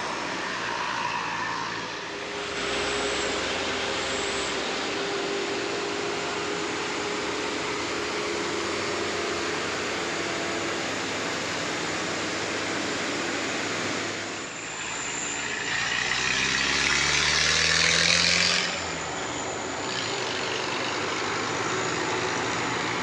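Tour bus engine running on a steep uphill climb. About two-thirds of the way through it revs, rising in pitch, with a loud hiss that cuts off suddenly.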